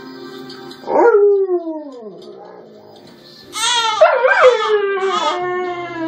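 A dog howling: one call sliding down in pitch about a second in, then from about halfway a longer run of loud howls that waver up and down in pitch.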